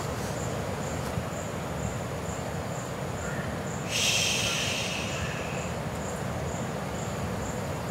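Outdoor ambience: a steady low rumble of background noise with an insect chirping in a regular high pulse about twice a second. About four seconds in, a brief hissing rush of noise rises suddenly and fades over a second or so.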